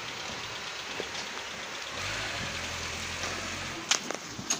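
Pickup truck's engine idling, a low steady rumble that firms up about halfway through, then a couple of sharp knocks near the end.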